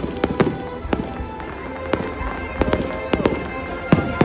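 Fireworks going off in a quick, irregular string of sharp bangs, about ten in four seconds and sometimes several within half a second, over steady background music.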